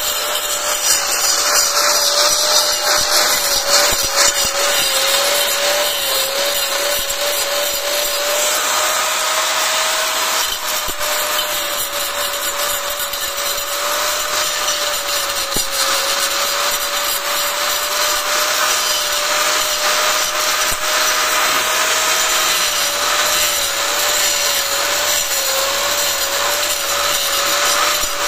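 Corded angle grinder with a cutting disc running continuously as it cuts grooves into red clay bricks: a steady motor whine that wavers slightly in pitch as the load changes, over gritty cutting noise.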